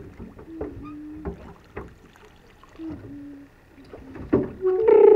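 Oars working in the oarlocks of a small rowing boat: scattered knocks and short creaking squeaks, then near the end a loud, long creak that slides down in pitch.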